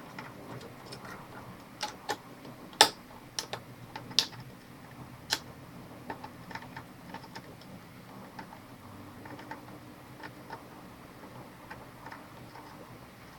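Irregular small metallic clicks and taps of a soldering iron and metal tweezers working a laptop's DC power jack loose from the motherboard during desoldering, the sharpest click about three seconds in, then fainter scattered ticks.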